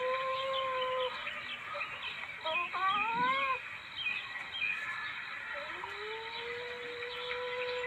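Civet call played as a hunting lure: a long, steady whining call that stops about a second in, a short wavering call that rises in pitch about three seconds in, then another long call that starts near six seconds, rises and then holds steady. Short high chirps sound faintly throughout.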